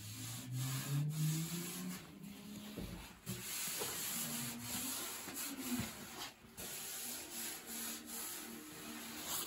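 A hand rubbing back and forth over the sanded paint, filler and bare steel of a VW Beetle decklid, feeling how straight the panel is. It comes in several long strokes with short pauses between them.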